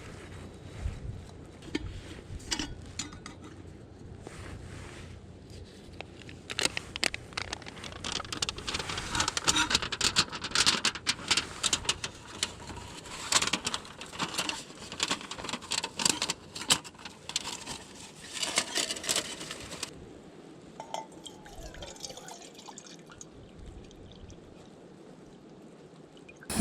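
Camp cooking under way: water poured and a titanium pot and gas-burner kit handled, with many light clinks and knocks through the middle of the stretch, then quieter towards the end.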